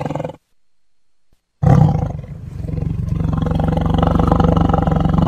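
Tiger roar sound effect: one roar tails off just after the start, and after about a second's pause a second, long rough roar begins and carries on.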